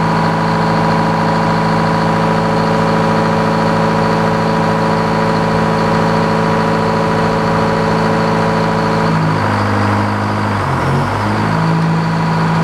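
Portable sawmill's engine running steadily just after start-up. About nine seconds in, its speed dips for a couple of seconds, then picks back up.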